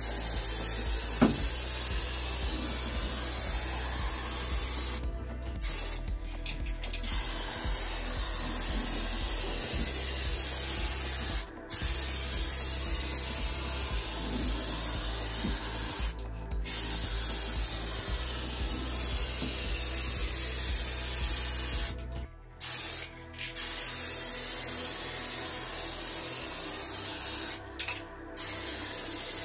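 Paint spraying: a steady hiss in long passes, broken by several short pauses as the spray stops and starts, while the second and final coat goes onto a panel.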